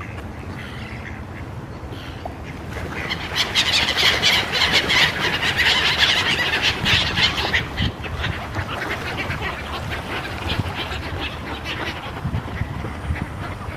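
A crowd of mallards and small gulls squabbling over thrown food on a river: ducks quacking and gulls calling, with a busy stretch of wing-flapping and splashing from about three to eight seconds in that then thins out.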